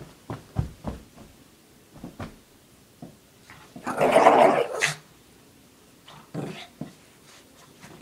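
Shih Tzu play-growling as she tugs and shakes a fleece blanket, with soft thumps and rustles on the carpet. The loudest is a burst of about a second near the middle, while she thrashes the blanket.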